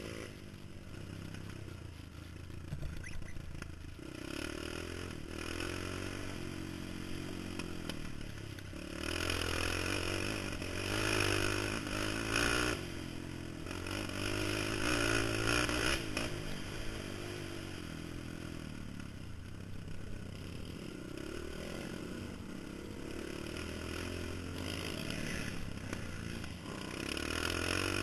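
Honda TRX450R quad's single-cylinder four-stroke engine running on a dirt trail, its pitch rising and falling over and over as the throttle is opened and closed. It is louder and higher through a stretch about a third of the way in and again near the end.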